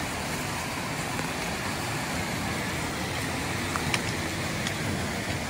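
Waterfall and whitewater creek rushing over rocks, a steady unbroken roar. A few faint clicks come about four seconds in.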